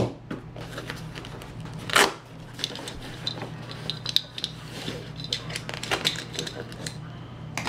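Handling noise in a soft nylon rifle case: a sharp knock at the start and a louder one about two seconds in, then fabric rustling with small metallic clicks and clinks as a hand digs in a pocket for pistol magazines. A steady low hum runs underneath.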